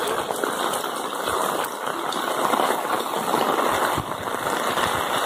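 Heavy rain falling steadily on a wet cobblestone street, an even hiss, with a few brief low thumps.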